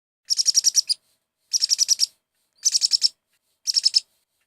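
A bird's high chirping trill, repeated four times about a second apart, each a quick run of rapid chirps.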